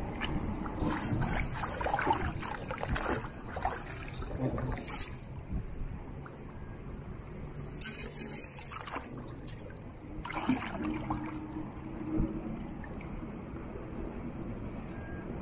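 Shallow bay water sloshing and splashing against a camera held at the waterline while someone wades. There is a low rumble of moving water throughout, with three bursts of splashing; the longest comes in the first few seconds.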